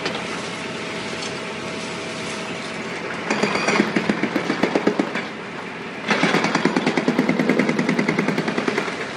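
Hyundai demolition excavator running steadily, with two bursts of rapid, even pounding against concrete at about five blows a second, the first about three seconds in and the second about six seconds in, each lasting two to three seconds.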